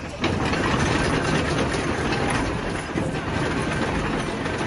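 Caterpillar 306E2 mini excavator's diesel engine running, getting louder about a quarter second in as the machine is worked, then holding steady.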